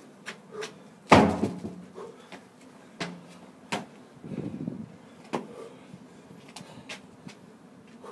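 A heavy thud about a second in as a large tire, flipped over in a tire-flip exercise, lands on the ground, with lighter knocks and clicks around it.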